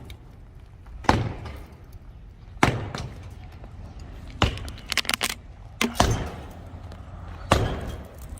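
Sledgehammer blows striking a structure being demolished: a sharp, ringing impact about every second and a half, with a quick run of several knocks a little past the middle.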